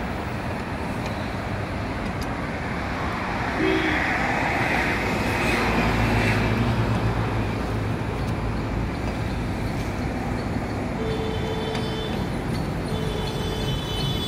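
Steady road traffic noise, with a motor vehicle passing and growing louder about four to seven seconds in.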